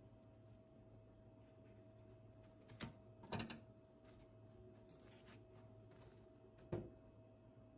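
Near-quiet room tone with a faint steady hum, broken by a few light taps or clicks: two close together about three seconds in and one more near the end.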